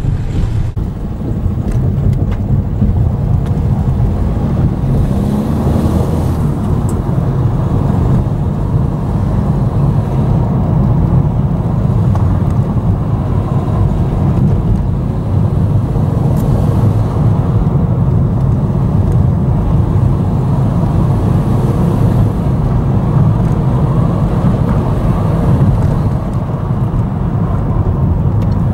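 Car driving steadily along a lane: a continuous low engine and tyre rumble with some wind noise.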